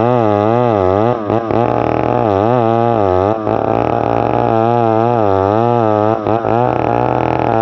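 Stihl 070 two-stroke chainsaw running under load while sawing a log into planks, its engine pitch wavering up and down about twice a second. The sound dips briefly three times: about a second in, past three seconds and near six seconds.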